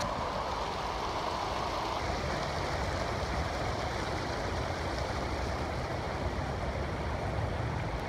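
Water rushing steadily over low stepped concrete weirs in a riverwalk channel.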